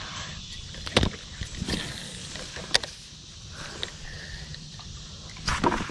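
Handling noise aboard a plastic fishing kayak as a spinning rod and reel are worked: a few sharp clicks and knocks over a low background, with a louder cluster of knocks near the end.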